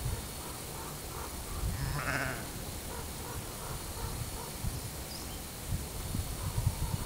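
A sheep bleats once, briefly, about two seconds in.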